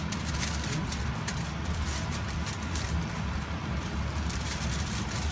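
Aluminium foil crinkling in short bits as hands press small fish down on a foil-lined grill tray, over a steady low hum.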